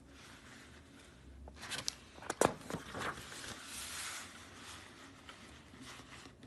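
Picture-book pages being turned and handled: faint paper rustling with a few short taps and clicks.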